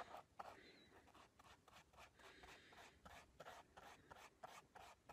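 Faint, quick strokes of a small paintbrush spreading Mod Podge over a paper comic cutout on a canvas shoe, a few strokes a second.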